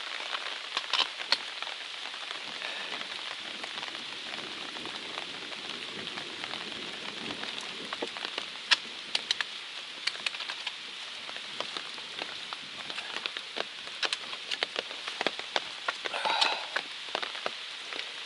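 Steady rain hiss with many sharp raindrop ticks striking close by, coming more often in the second half.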